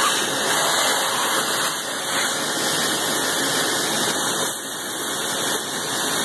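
Shop vac running steadily with its hose held at a drill bit, sucking up aluminum chips from a freshly drilled bolt hole in a cylinder head as the bit is backed out.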